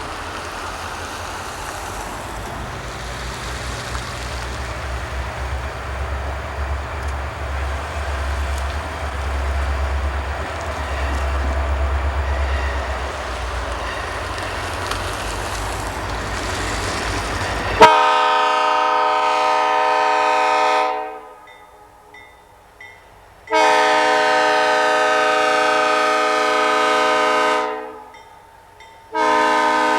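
A freight train rolling past with a steady deep rumble and wheel noise, then a diesel locomotive's multi-chime air horn sounding two long blasts and a shorter third, the pattern of a grade-crossing signal.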